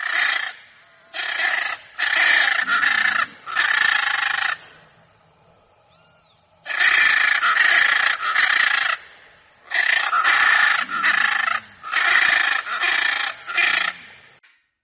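Macaw calling with a series of loud, harsh squawks, each about half a second to a second long. They come in three bouts, with a pause of about two seconds a third of the way in.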